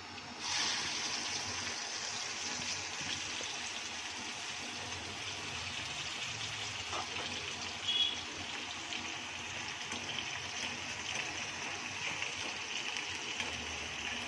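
Washed dried bombil (Bombay duck) sizzling steadily in hot oil in an iron kadhai; the sizzle starts abruptly about half a second in. A brief high clink comes about eight seconds in.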